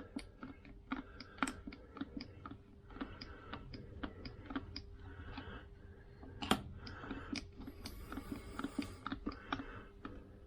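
Repeated irregular clicks and small knocks from a hand-pumped oil can as gear oil is pumped into a Vespa PX gearbox, with one louder knock about six and a half seconds in.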